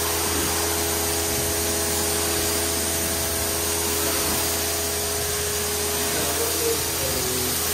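Pressure washer spraying water onto a pickup truck's front end: a steady hiss over a constant hum from the machine.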